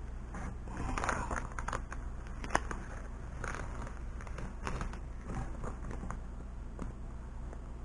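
Vinyl decal and its transfer tape being handled and peeled off the sign, with intermittent crinkling and crackling and one sharp click about two and a half seconds in, over a low steady hum.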